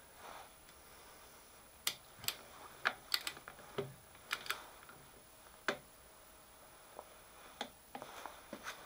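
Scattered sharp metallic clicks and taps as a milling vise is released and cranked tight again with a wrench on its spindle, about a dozen of them spread over several seconds.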